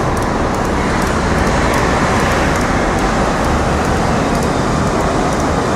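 Steady city street traffic noise: the mixed sound of passing vehicles on a busy street, with no single event standing out.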